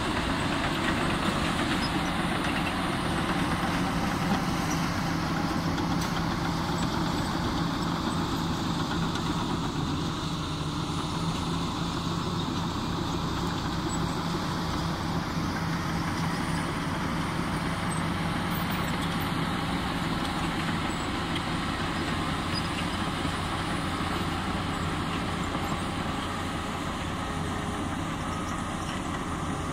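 Komatsu D85E-SS crawler bulldozer's diesel engine running steadily under load as the dozer pushes and spreads dirt with its blade, a constant low drone.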